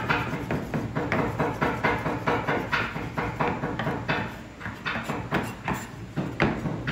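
Chef's knife rapidly chopping lime leaves fine on a wooden cutting board: a quick run of knocks, several a second, easing off briefly a little past the middle.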